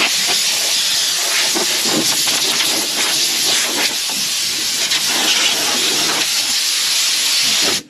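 Compressed-air blow gun blowing out a vehicle cab: a steady, loud hiss of air that cuts off abruptly near the end.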